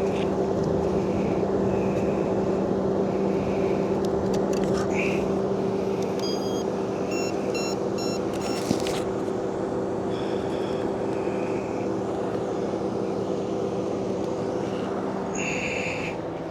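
A steady low mechanical hum, with a quick run of short electronic beeps about seven seconds in.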